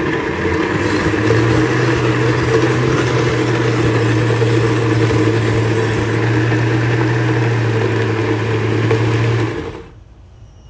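Countertop blender motor running steadily, grinding sautéed chili, onion, garlic and shrimp paste into a thick sambal paste. The motor cuts off suddenly about nine and a half seconds in.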